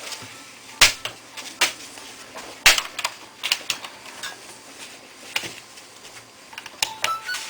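Irregular sharp clicks and knocks of a Toshiba A300 laptop's plastic case and parts being handled as it is connected up to power, about a dozen spread unevenly over several seconds.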